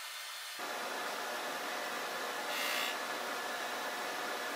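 Drum sander running with its dust-collection hose drawing air: a steady machine noise that grows fuller about half a second in. A brief, sharper high hiss comes about two and a half seconds in. The sander is taking a very light skim pass of a thousandth or two off thin glued-up inlay strips.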